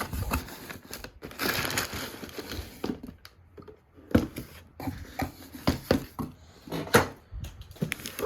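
Packaging of a microphone shock mount being handled and opened: crinkling and rustling, with about two seconds of continuous rustling starting a second in, then scattered knocks and taps.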